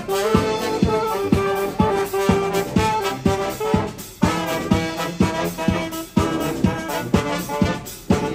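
Live brass band playing an upbeat tune: saxophone and trombones carrying held notes over a steady drum beat of about two strokes a second.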